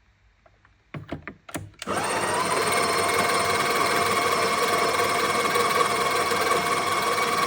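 Sage espresso machine: a few clicks as it is handled, then about two seconds in its motor starts and runs with a steady buzzing hum.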